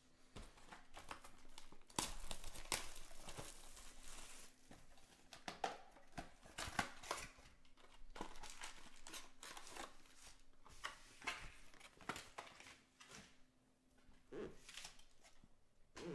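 Handling noise from a cardboard trading-card hobby box being opened and its foil-wrapped packs pulled out and set down: irregular rustling, crinkling, scraping and light taps.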